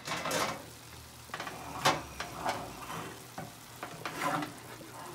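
Ground meat and diced onions sizzling as they brown in a frying pan, stirred with a wooden spatula that scrapes and knocks against the pan several times, the loudest stroke about two seconds in.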